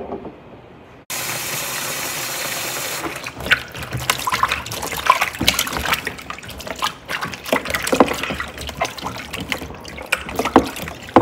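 A sharp click, then a kitchen tap running steadily for about two seconds, then garden eggs (white eggplants) being washed by hand in a bowl of water: irregular splashing with knocks against the bowl.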